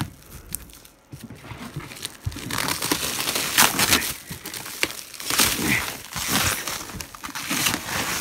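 Plastic stretch wrap being pulled and torn off by hand, loud irregular crinkling and rustling that starts about two and a half seconds in.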